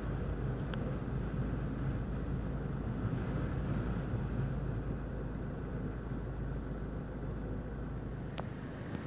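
Strong gusty wind buffeting a stopped car, heard from inside the cabin as a steady low rumble, with a single sharp click near the end.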